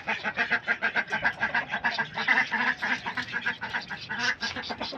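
Ducks quacking in a quick, continuous run of short calls while they are being fed grain.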